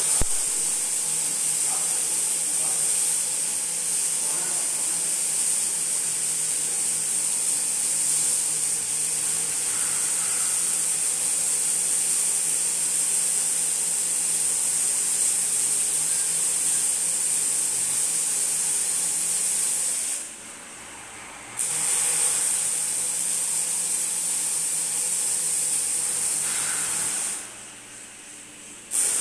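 Electric welding arc burning with a steady hiss. It stops twice, once for about a second and a half two-thirds of the way through and again shortly before the end, and is struck again each time.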